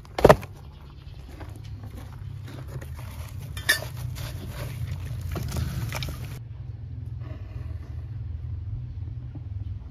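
A plastic crate knocks once, sharply, against the rim of a fire pit as wood shavings are tipped in, over a steady low rumble; a smaller sharp click follows a few seconds later.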